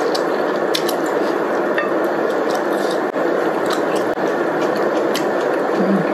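Hotpot broth bubbling steadily at a boil in an electric hotpot, close to the microphone, with scattered wet mouth clicks from chewing.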